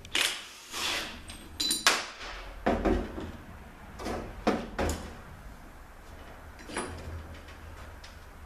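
Metal hand tools and parts clanking and knocking against an Aisin AW450-43LE transmission during teardown: a string of separate clanks and clinks about a second apart.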